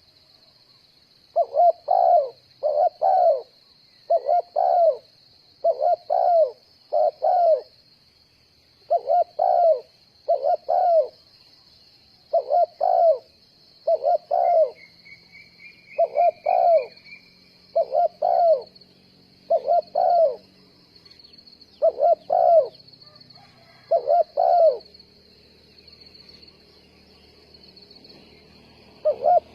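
Spotted dove cooing: a low two-note coo repeated over and over, about one phrase a second, pausing for a few seconds near the end. A steady high insect buzz runs underneath.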